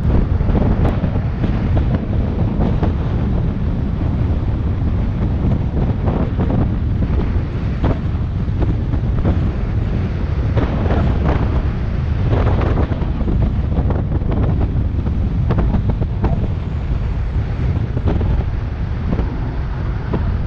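Heavy wind buffeting a bicycle-mounted camera's microphone during a high-speed downhill ride: a steady low rumble that swells and flutters in gusts.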